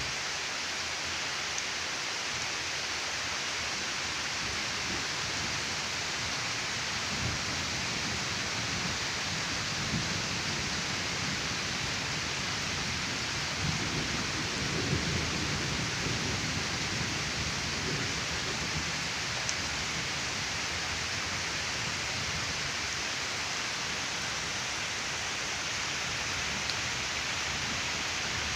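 Steady heavy rain falling, with low, uneven rumbles of wind gusts or distant thunder swelling through the middle.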